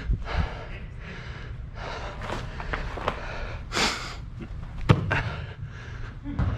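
A soccer player wearing the camera breathing hard while running with the ball on artificial turf, a breath about every second. A sharp knock about five seconds in, the loudest sound, is the ball being kicked.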